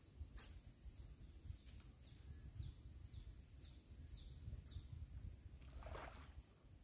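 A bird calling a series of about eight short, falling chirps, roughly two a second, over faint low rumble and a steady high tone. A brief rustling noise comes near the end.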